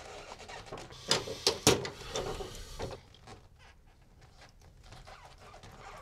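Pipe wrench clamped on a heavy iron drain bar, knocking three times in quick succession about a second in, with fainter rubbing after, as it is worked against a seized old tub drain that will not turn.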